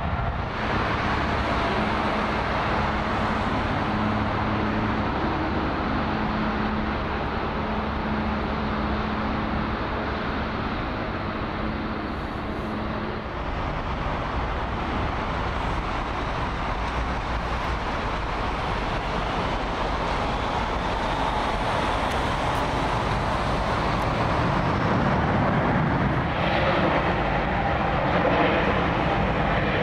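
Airliner jet engines running as Airbus A320-family jets move along the runway: a steady rush of engine noise with a low hum in the first part that stops partway through, swelling louder near the end.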